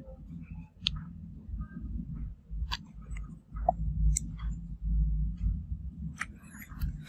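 Close handling sounds of a plastic glue tube being squeezed and a phone frame being turned in the hands: a low rubbing rumble with scattered small clicks and ticks.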